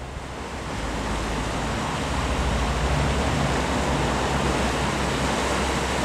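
Mountain river rushing over rocks and small rapids, a steady rush of water that grows louder over the first two seconds and then holds. A low steady hum runs underneath.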